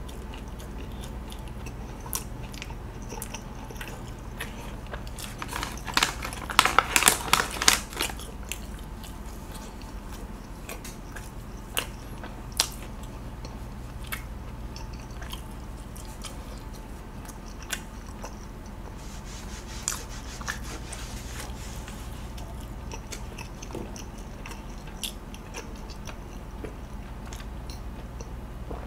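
Close-miked chewing of a mouthful of grilled sausage, quiet with scattered sharp clicks and a burst of louder crackles about six to eight seconds in, over a low steady hum.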